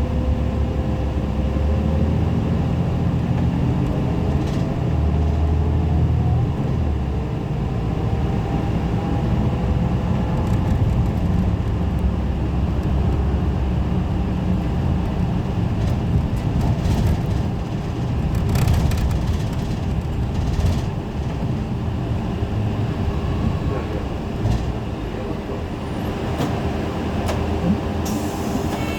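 Isuzu Erga Mio city bus running under way: a diesel engine rumbles while a whine rises in pitch over the first several seconds. The Aisin automatic transmission makes a loud, unusual noise as it shifts gear, a sound its recorder suspects is abnormal.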